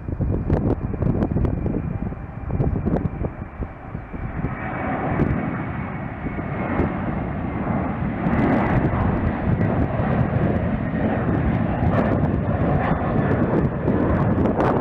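Jet airliner engines roaring as a plane passes, swelling from about four seconds in and staying loud, with gusty wind buffeting the microphone.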